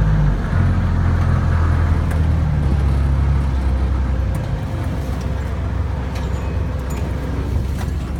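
A motor vehicle's engine running as it drives over rough ground, its low note easing off about four seconds in.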